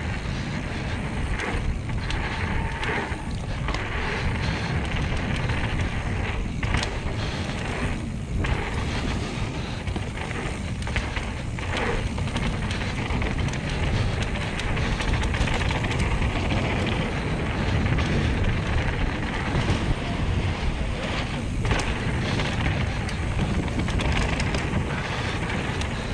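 Mountain bike rolling fast down a dirt trail: a steady rush of tyre noise and wind on the camera microphone, with occasional knocks and rattles as the bike goes over bumps.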